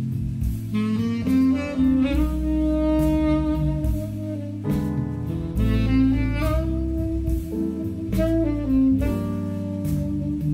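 Music playing through hi-fi loudspeakers driven by a McIntosh MC462 power amplifier and C47 preamplifier, heard in the listening room during a listening test. It is a melody of held notes over deep bass, with frequent cymbal-like strikes.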